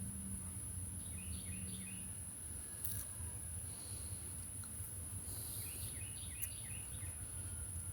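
Two short runs of quick bird chirps, each a few stepped notes, about a second in and again later, over a steady low hum and a faint high whine.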